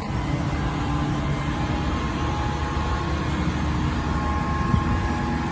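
A crane's engine running steadily while it unloads a truck, a low, even rumble with faint steady tones over it.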